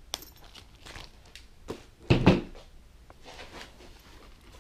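Handling sounds at a motorcycle helmet: a sharp click as shears snip off the tag at the start, scattered small clicks and rustles, and a dull thump about two seconds in.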